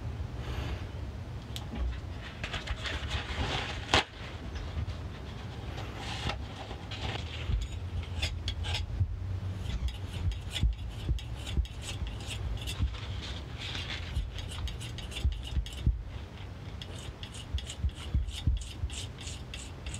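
Metal palette knife scraping and spreading oil paint across a marble slab in repeated strokes. There is a sharp tap about four seconds in, and quicker scrapes near the end.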